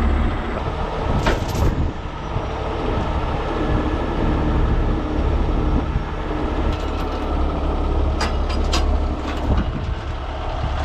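Heavy rotator tow truck's diesel engine idling steadily, with a few short sharp clicks about a second in and again near the end.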